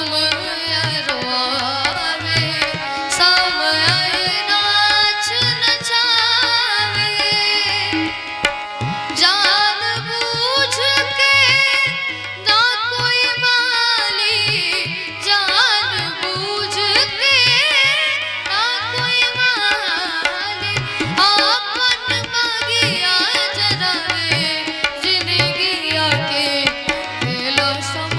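Instrumental music from a live Bhojpuri stage band: a hand-drum rhythm of steady strokes under a wavering melodic lead.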